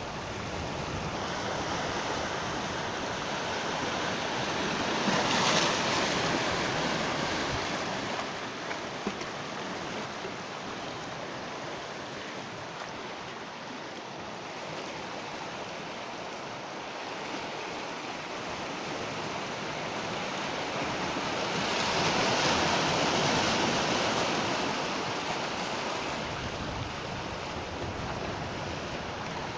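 Ocean waves breaking on the shore: a continuous surf wash that swells twice, with louder breakers about five seconds in and again near twenty-two seconds.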